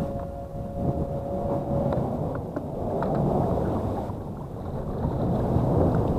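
Wind buffeting the microphone: a low, uneven rumble, with a faint steady hum that stops about two seconds in and a few light ticks.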